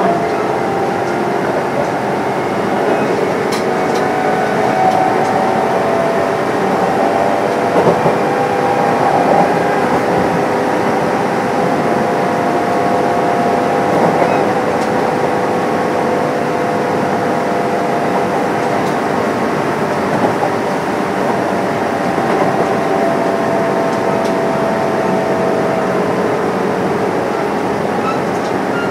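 Kintetsu 8800 series electric train running between stations, a steady rolling rumble with a level whine and a few light knocks from the track.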